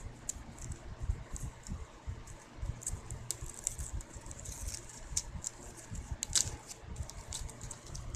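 A gift package being worked open by hand: irregular small clicks and rustles of packaging, with low handling bumps.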